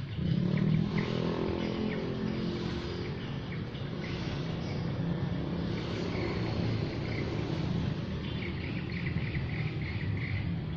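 Motor vehicle engine running out of sight, loudest in the first second, its pitch falling over the next two seconds, then going on steadily.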